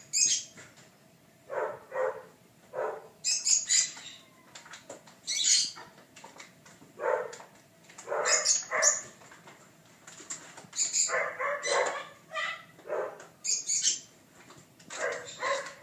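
A young puppy giving short, sharp barks and yips, one to three at a time, every second or two.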